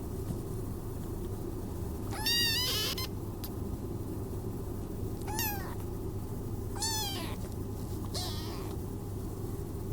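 A kitten meowing four times in high, arched calls: a long one about two seconds in, two short ones a few seconds later, and a faint last one near the end.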